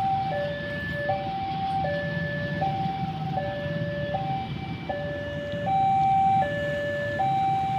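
Railway level-crossing warning alarm sounding a steady two-tone signal, alternating between a higher and a lower tone about every three-quarters of a second, over the low rumble of a passing train.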